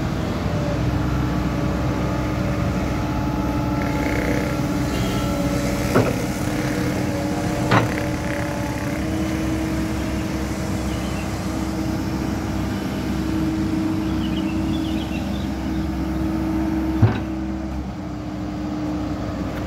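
Komatsu PC120-6EO excavator's diesel engine running steadily as the hydraulics work the boom, arm and bucket, with three sharp knocks, two about six and eight seconds in and one near the end.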